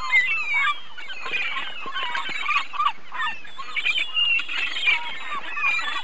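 A flock of gulls calling: many short cries overlapping one another in a dense chorus.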